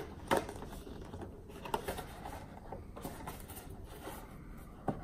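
Handling of a cardboard iPad box: faint rubbing and scraping of the card as it is lifted and turned, with a few sharp clicks or knocks, the loudest about a third of a second in and another near the end.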